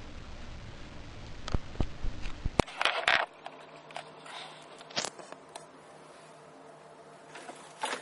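Scattered sharp clicks and a few short scraping rustles over low background noise. About two and a half seconds in, the low rumble cuts out abruptly, leaving a faint steady hum.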